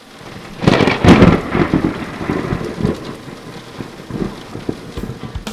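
Thunderstorm: a loud thunderclap about half a second in, rumbling away over steady rain.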